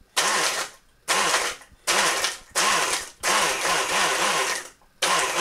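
Breville Blend Active personal blender motor pulsed on and off in about six short bursts, one lasting about a second and a half, its blades chopping a dry digestive biscuit into crumbs.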